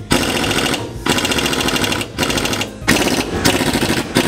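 Pneumatic air impact wrench hammering in bursts of a second or two on a seized nut under a leaf spring, with brief pauses between bursts. The nut does not budge.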